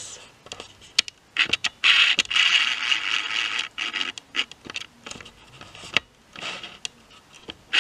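Paper packaging rustling and scraping as it is handled, with a louder stretch about one and a half seconds in that lasts a couple of seconds, and a few sharp clicks and taps between the rustles.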